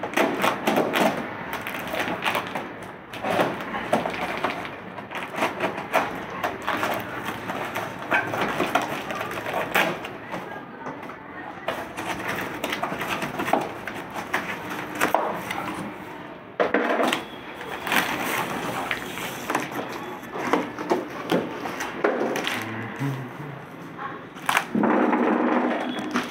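Long cardboard bat box being cut and torn open: packing tape and cardboard ripping, flaps crackling and rubbing in a quick string of cracks and tears.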